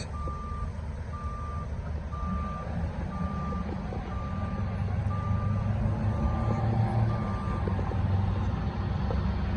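Fire department ladder truck's diesel engine rumbling as it drives closer, growing louder partway through. Over it an electronic beeper sounds eight times, about once a second, like a reversing alarm, and stops well before the end.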